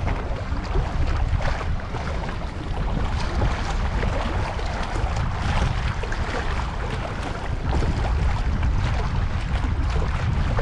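Wind buffeting the microphone as a steady low rumble, over small sea waves lapping and splashing against breakwater rocks.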